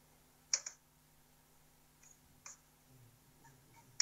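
A few faint, sharp clicks over a low steady hum: a quick double click about half a second in, a single click about two and a half seconds in, and another starting a rapid cluster right at the end.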